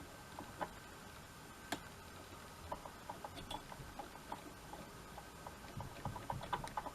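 Faint small clicks and ticks of hands working thread and floss at a fly-tying vise: two sharp clicks in the first two seconds, then a run of quick irregular ticks that gets busier near the end.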